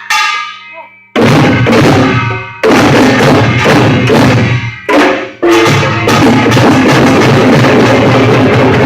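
Korean pungmul percussion ensemble playing loudly, with drums and ringing gongs beating a fast rhythm. A ringing strike at the start, then dense playing from about a second in, with brief breaks around two and a half and five seconds. Recorded harsh and distorted on a phone's microphone.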